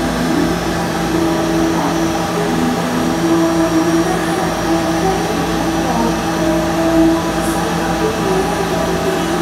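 Dental suction equipment running with a steady hiss and hum.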